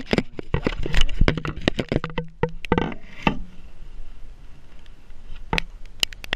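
Irregular knocks, clicks and clatter of parts and tools being handled in a car's engine bay, thick for the first three seconds or so, then sparser, with a few sharp knocks near the end.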